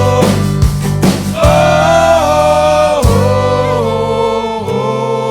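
Country-rock song playing without lyrics: drum hits and a lead melody that slides up and down between notes.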